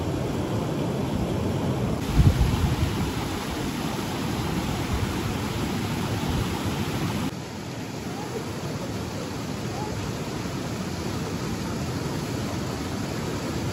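Steady rushing of a shallow stream's flowing water, with a brief louder low rumble about two seconds in and a slight drop in level a little after seven seconds.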